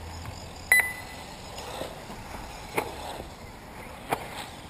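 A single short electronic beep about a second in, like a race lap-counter registering a car, followed by two sharp knocks over steady outdoor background noise.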